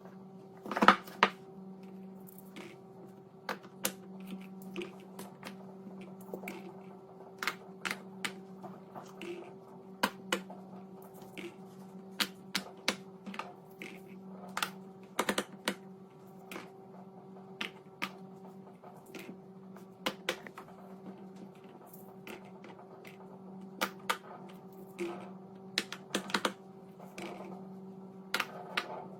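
Small plastic fidget toy being clicked and tapped: irregular sharp clicks, a few a second and unevenly spaced, over a steady low hum.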